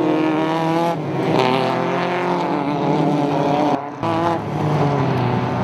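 Several hatchback race cars' engines running hard on a dirt circuit, their pitches wavering slightly as the cars pass. The sound drops suddenly for a moment about four seconds in, then resumes.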